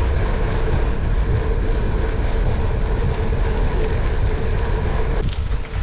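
Wind rushing over the microphone of a bike-mounted camera and gravel-bike tyres rolling over a dirt path, a loud steady rumble with a faint steady hum. The sound changes abruptly near the end.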